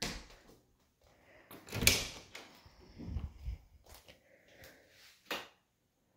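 Interior house doors being shut and opened: a click right at the start, the loudest knock about two seconds in, a dull low thud a second later, and a sharp click near the end.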